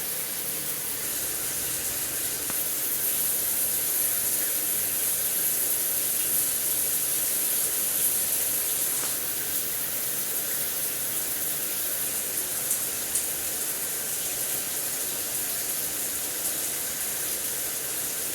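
Shower water running steadily, a continuous hissing spray with a few faint patters of drops.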